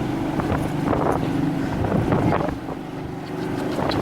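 Motorboat engine running steadily under way, with wind buffeting the microphone and a few short knocks.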